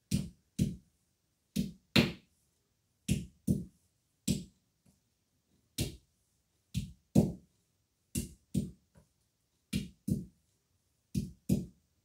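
A hand-held stone knocking down on green olives laid on a flat stone, cracking them open one at a time for curing. Sharp dull knocks, mostly in pairs half a second apart, the pairs coming about every second or so.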